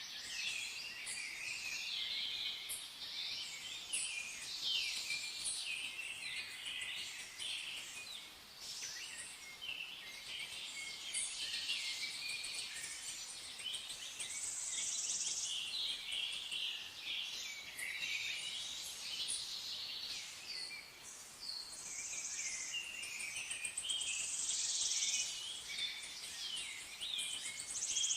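A chorus of many songbirds chirping and trilling over one another, with short calls overlapping continuously.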